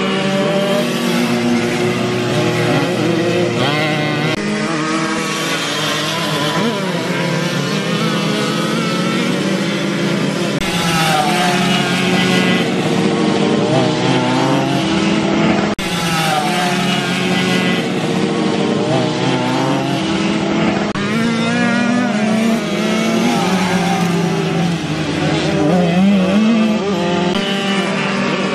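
Several small two-stroke Puch moped engines racing round a dirt track, each holding its own pitch and revving up and down, with bikes passing in falling pitch now and then.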